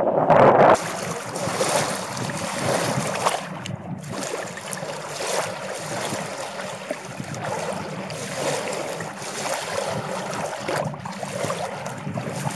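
Sea water washing and splashing close to the microphone, mixed with wind noise on the microphone. A louder rush in the first second cuts off suddenly, and a lighter, uneven wash continues after it.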